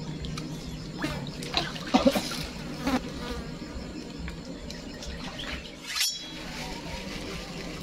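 Steady buzzing of a flying insect, with a few short knocks and clatters between one and three seconds in. A swoosh transition effect comes about six seconds in.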